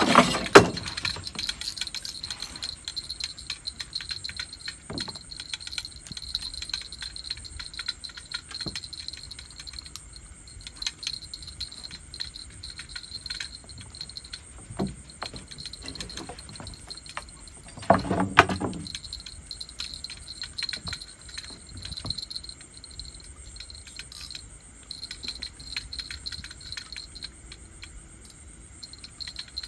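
Insects chirping steadily at night in a high, pulsing drone, with a scattering of faint clicks. Two brief, louder knocks or rustles come at the very start and about eighteen seconds in.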